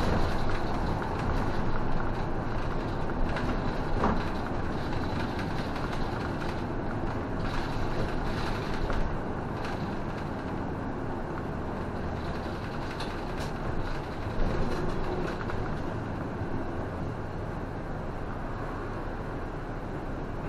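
City bus running along a street, heard from the driver's cab: steady engine and road noise, with a few light knocks and rattles from the cabin.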